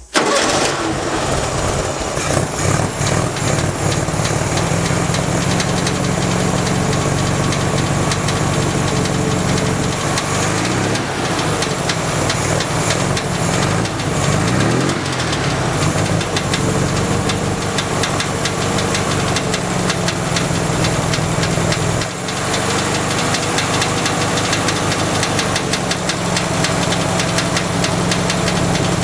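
1967 Volkswagen Beetle's air-cooled flat-four engine running with a strange rapid knocking, the engine note shifting briefly near the middle.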